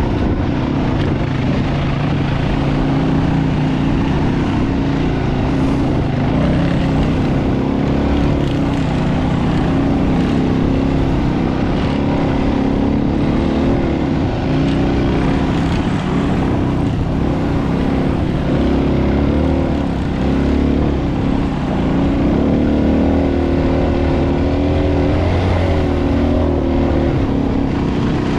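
Dual-sport motorcycle engine running continuously as the bike is ridden off-road, its pitch rising and falling with the throttle.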